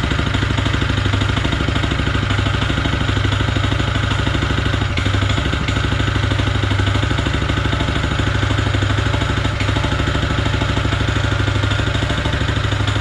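Honda GX160 single-cylinder four-stroke petrol engine on a concrete power trowel running steadily, with a clear knock between the crankshaft and the connecting rod: a worn big-end that leaves the machine unfit to work.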